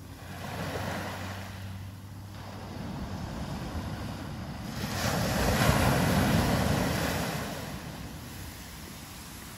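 Small waves breaking and washing up a sandy beach: a soft surge about a second in, then a louder one from about five to seven and a half seconds in.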